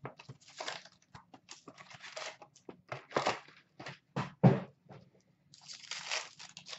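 Trading-card box and pack wrappers being handled and opened by hand: a run of crinkling, tearing rustles with a few sharp knocks, the loudest a little past halfway, and a longer crinkling stretch near the end as a pack is torn open.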